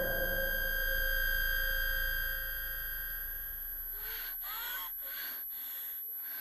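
A steady high electronic tone that cuts off about four seconds in, followed by a woman's frightened gasping breaths, about two a second.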